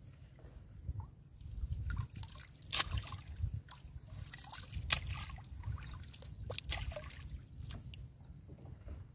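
Seawater trickling and dripping off a fishing net as it is hauled by hand into a small outrigger boat. A few sharp knocks and splashes sound as the net and floats come aboard, over a steady low rumble.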